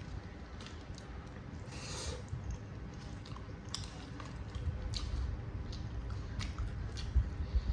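Close-up chewing of saucy instant noodles, wet mouth sounds with scattered small clicks and a brief noisy burst about two seconds in.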